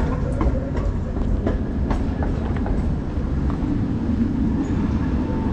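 A rail vehicle running past: a steady low rumble with scattered sharp clicks.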